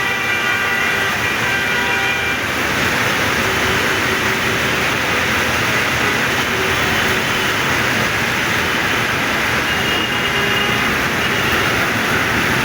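Heavy, steady rain pouring down in a continuous downpour.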